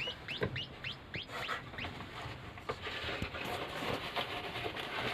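Baby bird cheeping: a run of short, high, down-slurred chirps, about two a second, that thins out after about two seconds.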